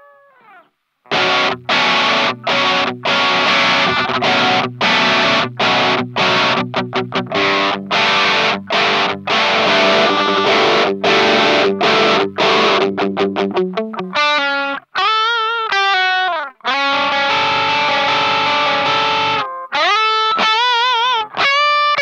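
Electric guitar played through a T-Rex Vulture distortion pedal: a heavy, distorted rhythm riff of chord strikes broken by short stops and fast chugs. From about two-thirds through it turns to lead notes that are bent up and held with vibrato, around a sustained chord.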